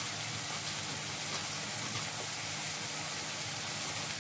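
Onions frying in hot oil in a kadai, a steady sizzling hiss with faint crackles.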